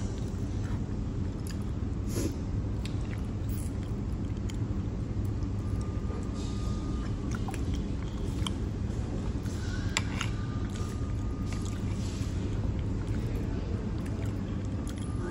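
Chewing and a metal fork clinking and scraping in a ceramic bowl of creamy penne, with one sharp clink about ten seconds in, over a steady low background rumble.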